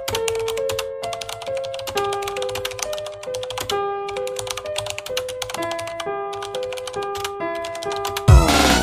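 Intro music: a simple melody of held, stepping notes over rapid keyboard-typing clicks used as a sound effect. Near the end a much louder electronic track with heavy bass cuts in suddenly.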